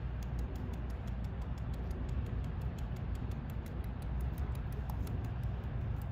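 Indian peafowl pecking food off concrete, its beak tapping in quick, irregular ticks, several a second, over a steady low rumble.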